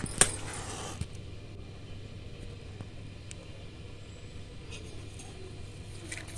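A wooden match struck on the side of a matchbox: a sharp scratch as it catches and a hiss about a second long as it flares. A faint steady low hum runs underneath.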